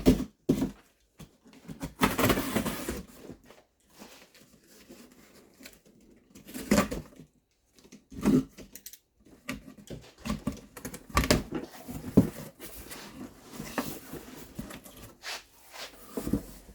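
Rustling, scraping and irregular knocks of a cardboard box being opened and its contents handled, with a longer rustle about two seconds in and a few sharper knocks later.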